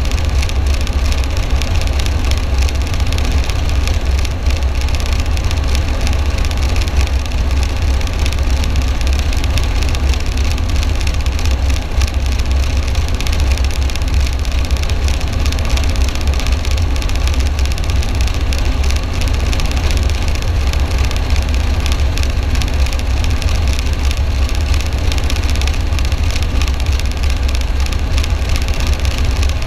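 Military helicopter running steadily, its rotor and engine sound loud and unbroken and heaviest in the deep low end.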